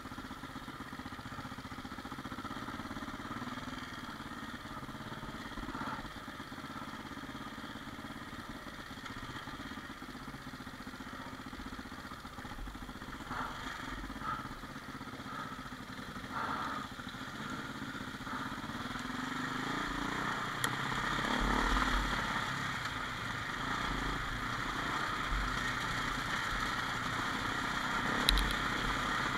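Single-cylinder four-stroke engine of a 2000 KTM 400 EXC trail bike running under way, heard from the rider's camera. It gets louder in the last third, with a deeper rumble, and there are a few short knocks as the bike rides over the rough ground.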